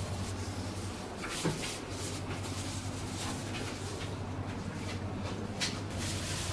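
Steady low hum with scattered clicks, knocks and rustles of objects being handled, a sharp knock about a second and a half in and another near the end.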